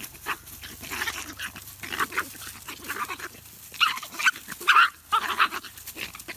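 Two puppies play-fighting, giving high yelps and growls in short, irregular bursts that grow louder in the second half.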